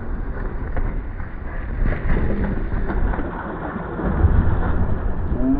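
Water splashing and running down an inflatable water slide as a kid slides down it, with a heavy rumble of wind and rubbing on a GoPro's microphone, louder about four seconds in.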